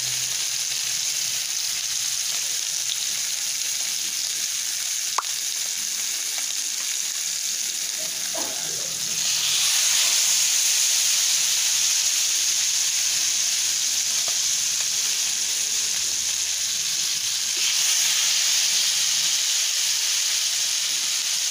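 Masala-coated sardines shallow-frying in a little hot oil in a pan, a steady sizzle that grows louder about nine seconds in. A single brief click about five seconds in.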